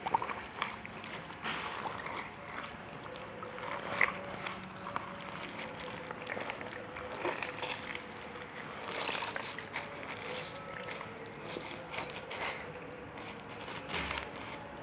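Slime being worked by hand, mixed and squished, with many short wet, sticky clicks and pops.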